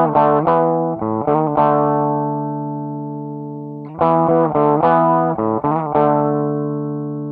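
Electric guitar played through a Line 6 Pocket Pod amp modeler. A quick run of picked notes ends on a held note that rings and slowly fades, and about four seconds in the phrase is played again.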